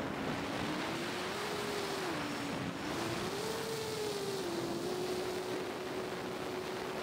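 Motors and propellers of a heavy 8S FPV drone of about 3 kg, a whine that swings up and down in pitch with the throttle and then holds steady for the last two seconds, over a rush of wind and propeller noise.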